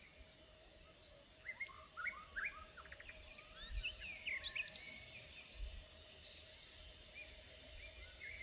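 Several wild birds chirping and calling, busiest from about a second and a half in until about five seconds, over a low wind rumble and a faint steady tone.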